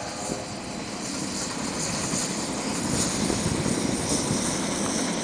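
Steam train running past at a distance: the locomotive working and the coaches rolling make a steady rushing rumble with no whistle.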